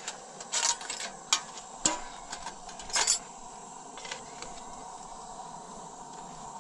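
Clinks and clatters of dishes and a spoon as food is served from plates and bowls on the floor: a handful of sharp knocks in the first three seconds, then only a faint steady background hiss.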